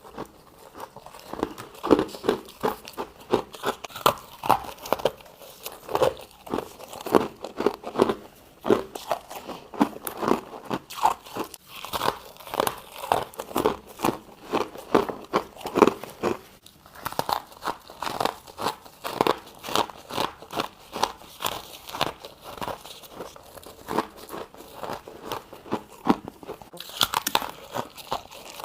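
A person biting and chewing freezer frost and ice, a continuous run of crisp, irregular crunches, several a second.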